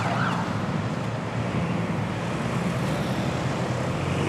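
Road traffic on a city street: a lorry and cars driving past with a steady engine rumble, and the tail of a wailing siren fading in the first moment.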